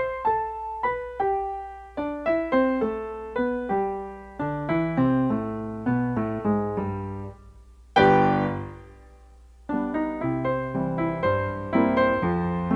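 Background music: a quick melody of short, piano-like keyboard notes. About eight seconds in a single loud chord swells and fades into a brief lull, then the notes return and build.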